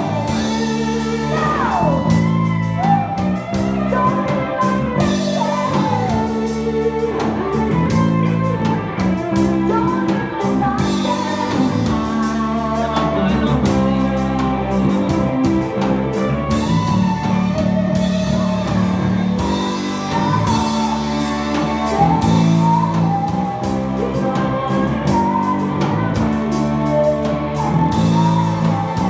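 Live rock band playing a song, with a singer over electric guitar, played at a steady loud level throughout.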